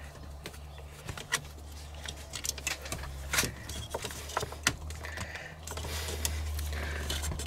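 Irregular small metal clicks and taps as a battery's positive terminal hardware and a small metal plate on the terminal block are worked loose by hand, over a steady low hum.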